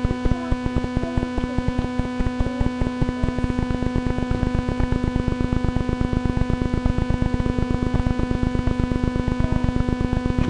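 Steady electrical buzz of interference on the recording: a constant hum with many overtones and a fast, even run of clicks, unchanging throughout.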